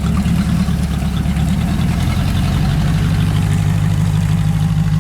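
A 1979 Ford Thunderbird's 302 V8 idling steadily with a loud, low exhaust rumble: the exhaust needs a muffler.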